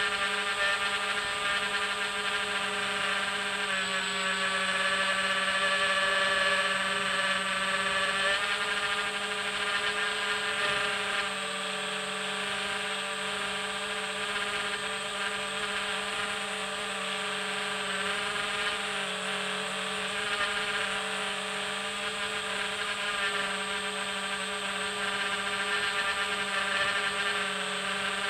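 Multirotor drone's electric motors and propellers whining steadily, heard from its own onboard camera, with small shifts in pitch about four and eight seconds in as it flies.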